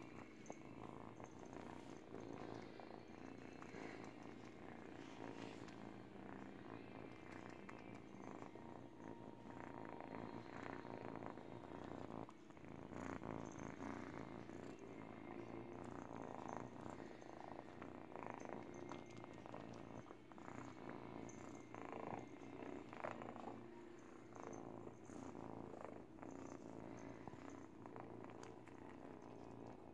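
Eight-week-old teething kitten purring steadily, heard close up, while it chews and mouths a fleece baby blanket, with soft scratchy rustles from the fabric.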